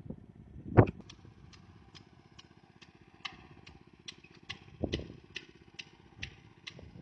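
Rice transplanter's small engine running, with a rhythmic clicking from the machine about twice a second. There is a loud thump about a second in and a few heavier knocks later.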